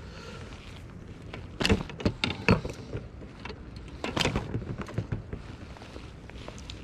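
Handling noise: a few short rustles and bumps about two seconds in and again about four seconds in, over a low steady rumble.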